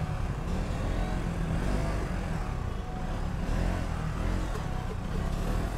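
KTM Duke motorcycle's engine running steadily at low speed in slow, dense city traffic, with the engines of the cars and scooters around it.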